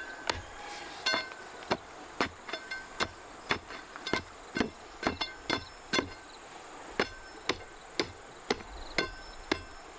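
Repeated sharp strikes, about two a second in a steady rhythm, many of them with a brief metallic ring, as of metal hitting metal.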